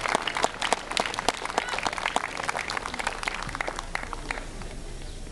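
Crowd applauding, a dense patter of clapping that thins out and dies away about four and a half seconds in.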